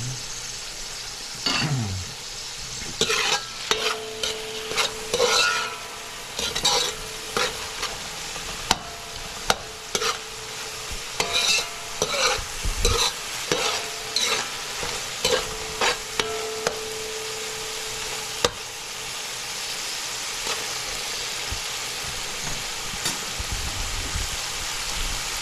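Chopped onion, tomato, garlic and scallions sizzling in oil in a large metal pan, stirred with a spoon that scrapes and knocks against the pan in quick irregular strokes. For the last several seconds the stirring stops and only the steady sizzle goes on.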